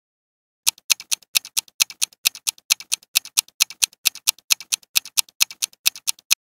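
Countdown-timer clock-ticking sound effect: fast, even ticks at about four to five a second, alternating louder and softer like a tick-tock, starting just under a second in and stopping just before the end.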